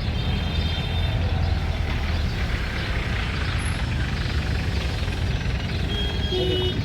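Steady low rumble of motor vehicles, with a few brief faint high tones near the start and again near the end.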